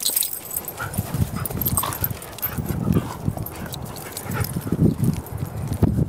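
Dogs playing in long grass, giving brief whines, over irregular low thumps of footsteps.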